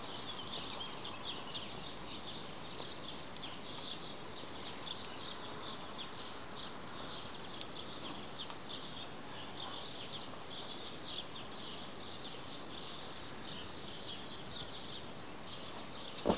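Small birds chirping in a dense, continuous chorus of short high chirps over a steady outdoor hiss, with one sharp click near the end.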